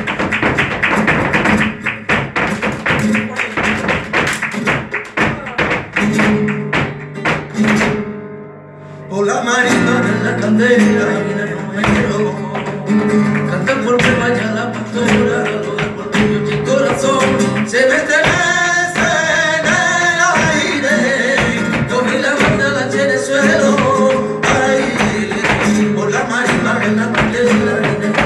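Live flamenco: a fast run of hand claps and percussive strikes, then from about nine seconds in a flamenco guitar and a singer's voice join over continuing palmas.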